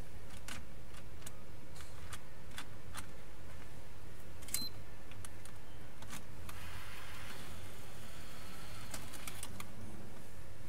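Light clicks and taps of hands working a PlayStation 4 Slim's opened Blu-ray disc drive and a game disc, with a brief scraping sound about seven seconds in, over a steady low hum. The disc sticks in the drive and will not go in.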